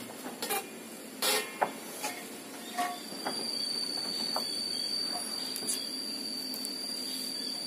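Engine-driven circular sawmill: a few sharp knocks of timber on the saw table, then from about three seconds in a steady high whine of the spinning saw blade over a faint engine hum.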